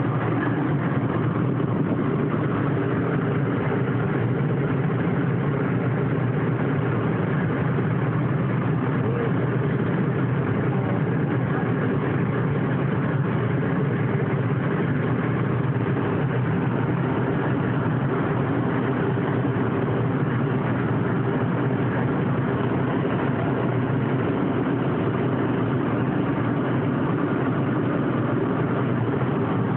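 Steady road and engine noise of a car driving along a highway, heard from inside the cabin: an even rumble and hiss that does not change.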